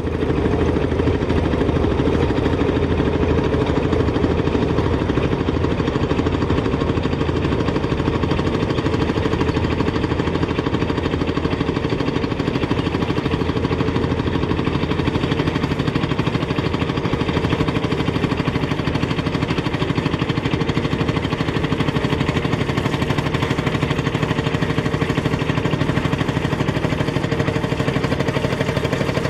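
1952 Fowler VF crawler's single-cylinder two-stroke diesel engine running steadily under load, pulling a sled, with an even chugging beat.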